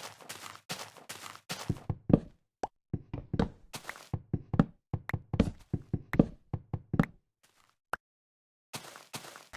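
A series of sharp knocks: evenly paced at about three a second at first, then quicker and uneven, with a silent break of over a second near the end.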